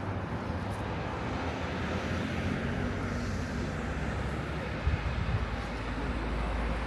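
Steady city street ambience with a low rumble of vehicle traffic; a deeper low rumble swells up about five seconds in.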